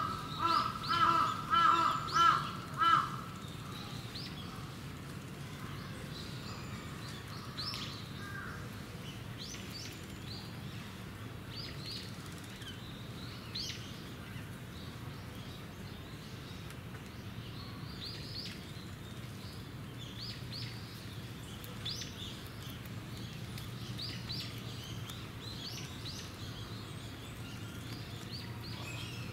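A crow caws about five times in quick succession during the first three seconds. Scattered small-bird chirps follow over a steady low background hum.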